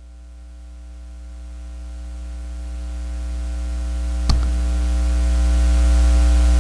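Steady electrical mains hum and hiss from the sound system, swelling steadily louder, with a single sharp click about four seconds in.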